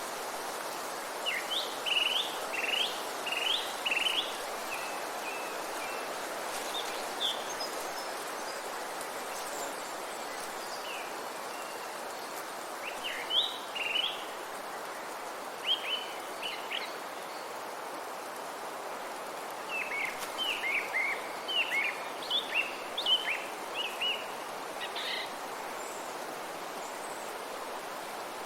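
Songbirds singing in short bursts of quick chirping notes, three spells of song with gaps between, over a steady, even background rush of forest ambience.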